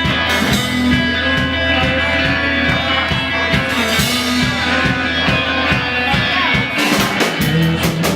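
Live rock band playing with a steady drum beat; the cymbals come in harder about seven seconds in.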